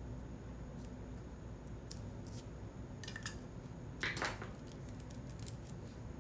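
Light taps and clicks of planner supplies (tape, sticker sheets, paper) being handled on a desk, with a short crinkling rustle about three seconds in and a louder one about four seconds in.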